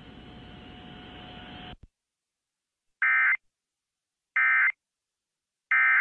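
Faint broadcast hiss with a faint steady tone for under two seconds, then silence, then three short, identical bursts of Emergency Alert System end-of-message (EOM) data tones about a second and a half apart: the digital code that closes an EAS alert.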